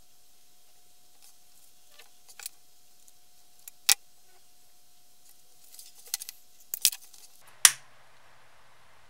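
Scattered small clicks and taps from handling a leather holster and its stitching thread. About seven and a half seconds in, a lighter is struck with a sharp click and then burns with a steady hiss, held to the stitched seam to seal the thread end.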